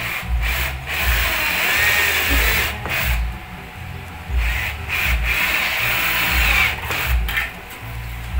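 Cordless drill boring into the wooden base of a stair baluster, running in two bursts of a couple of seconds each, the bit grinding through the wood. A music track with a steady low beat plays underneath.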